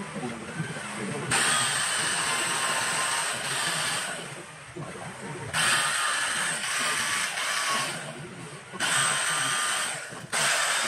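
High-speed rotary carving tool grinding into rosewood in several bursts of a few seconds each. Its hissing whine cuts in and drops out between passes.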